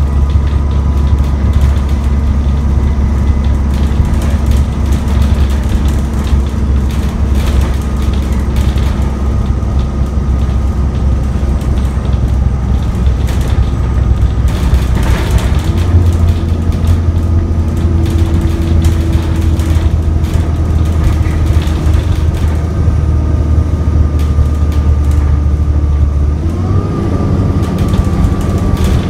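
ADL Enviro 400 double-decker bus heard from inside while driving: its diesel engine runs at a steady high rev with a faint whine, the bus stuck in limp mode so it labours along slowly on good revs. The engine note steps up in pitch about halfway through and again near the end, with rattles and clicks from the bus interior throughout.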